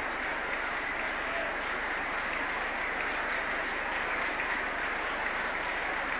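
A congregation praying aloud all at once: a steady, dense mass of many voices blended together, with no single voice standing out.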